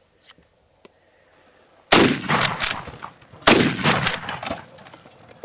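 Two shots about a second and a half apart from a Big Horn Armory Model 90A lever-action rifle in .454 Casull with an 18-inch barrel. Each shot is a sharp crack followed by a long fading echo.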